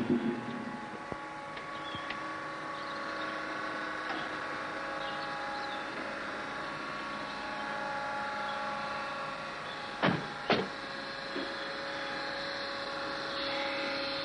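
Electric driveway gate closing: a steady motor hum, with two sharp knocks about ten seconds in.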